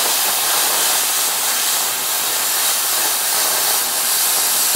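Everlast Hatchet 60 plasma cutter's torch cutting 3/8-inch carbon steel plate at 40 amps: a steady, loud hiss of the plasma arc and air jet, which stops sharply right at the end.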